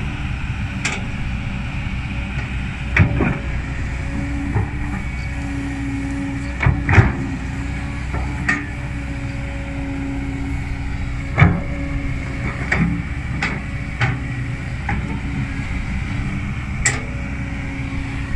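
Kobelco SK200 hydraulic excavator's diesel engine running steadily as it digs, with a humming tone that comes and goes. Sharp knocks and clanks recur every second or two as the bucket works into the soil pile, the loudest about three, seven and eleven seconds in.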